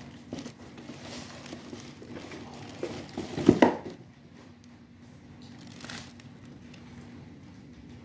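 Plastic bag crinkling and rustling as it is handled, loudest in a short burst about three and a half seconds in.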